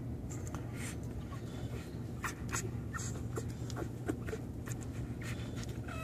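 Newborn American pit bull terrier puppies nursing on their mother: many quick, irregular wet suckling clicks and smacks.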